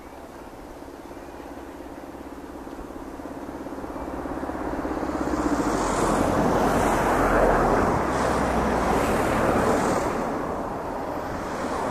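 Steam locomotive hauling a passenger train, working hard. Its exhaust and running noise grow steadily louder as it approaches, are loudest a little past the middle, then ease slightly.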